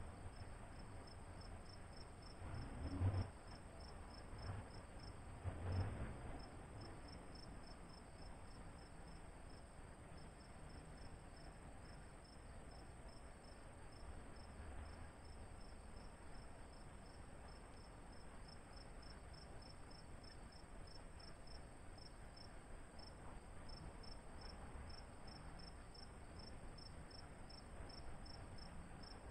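Cricket-like insect chirping steadily, a faint high-pitched pulse repeating about twice a second. Two brief low rumbles, about three and six seconds in, are the loudest sounds.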